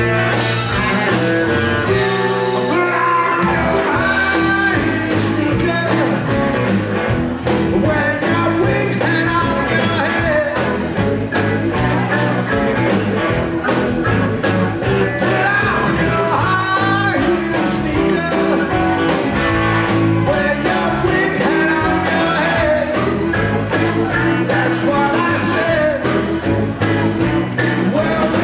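Live rockabilly band playing loud and steady with a driving drum beat: electric guitars, bass, drums and keyboard, with a sung lead vocal.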